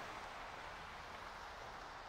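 Steady outdoor ambient hiss with no distinct events.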